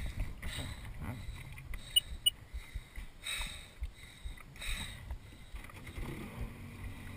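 Wind buffeting the microphone and water slapping against the hull of a Sea-Doo personal watercraft sitting on the lake, with a few short splashy swells. A low steady engine hum comes in about six seconds in.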